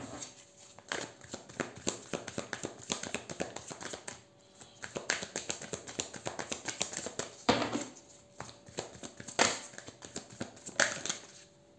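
Tarot cards being shuffled and handled: long runs of rapid, light papery clicks, broken by three sharper slaps in the second half as cards are flicked or laid down.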